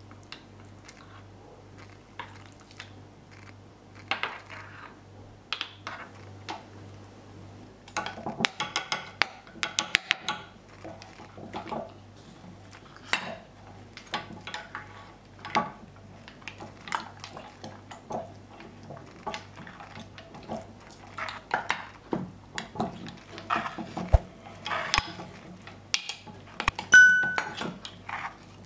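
Metal spoon clinking and scraping against a glass jar and the metal hopper of a hand meat grinder as soft cream cake is scooped and pushed in, in irregular taps and scrapes. A louder ringing clink comes near the end, over a steady low hum.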